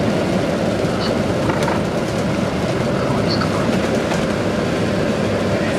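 Steady low rumble of a moving bus heard from inside the cabin, engine and road noise with a few small clicks and squeaks from the bodywork.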